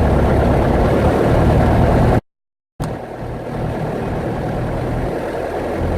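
Single-engine light aircraft's piston engine and propeller running at run-up power, steady. The sound drops out abruptly just after two seconds in and comes back a little quieter.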